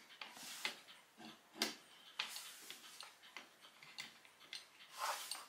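Quiet, irregular clicks and taps of metal parts being handled and adjusted on a homemade plywood clock mainspring winder, with a few short scuffs about half a second in, past two seconds and near the end.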